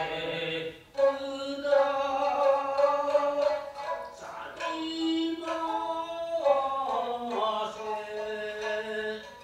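Traditional Japanese puppet-theatre music: a chanter sings about three long, drawn-out phrases of melismatic chant, accompanied by shamisen.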